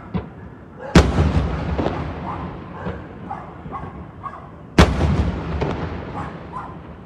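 Aerial firework shells bursting: two heavy booms about four seconds apart, each trailing off in a long rumbling echo, with a few smaller pops between.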